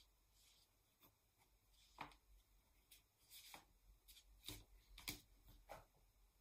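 Faint, short scratches of a ballpoint pen hatching ink lines on paper, coming in irregular strokes about once a second.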